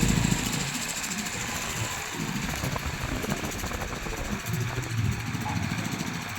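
A heavy diesel engine running, its low sound swelling and easing, with music playing alongside.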